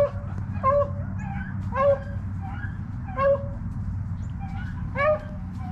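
Rabbit-hunting dogs baying on a chase: short, pitched cries from more than one dog, a loud one every second or so with fainter ones between, over a steady low hum.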